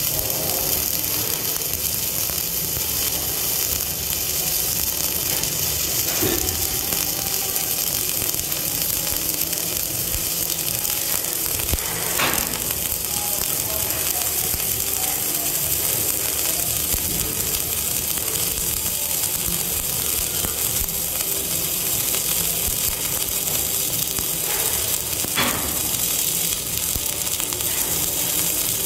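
Self-shielded flux-core welding arc (Lincoln NR-305 wire, 5/64 in) burning continuously with a steady crackle and sputter. A few sharper pops stand out, the clearest about 12 seconds in and near the end.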